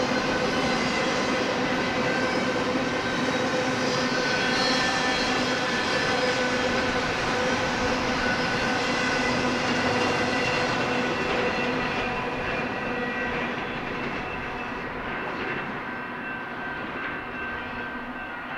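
Freight train of empty intermodal well cars rolling past on the rails, a steady rumble with several steady ringing tones above it, fading away over the last several seconds as the end of the train passes.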